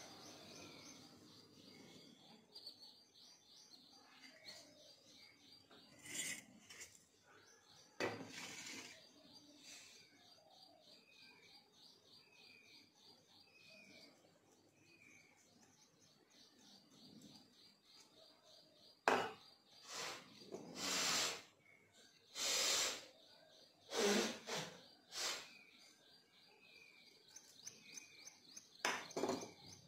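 Flour being tipped and scraped out of a steel bowl into a ceramic bowl: a few soft rustling, scraping knocks, with a cluster of louder ones about two-thirds of the way through. A bird chirps in the background with short falling notes repeated about once a second, through most of the first half and again near the end.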